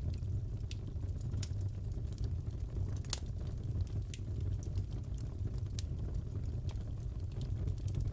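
Wood fire crackling in a fireplace: scattered sharp pops and crackles over a steady low rumble, with one louder pop about three seconds in.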